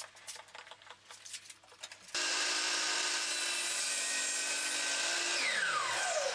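A few clicks and taps as a board is set and clamped on a DeWalt sliding compound miter saw. About two seconds in the saw starts running loudly and steadily, and near the end its whine falls in pitch as the blade spins down after the trigger is released.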